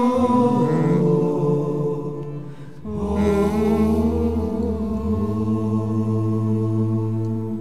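Wordless passage of a slow Corsican lament: held, chant-like voices sustaining chords in harmony. A new held chord comes in about three seconds in.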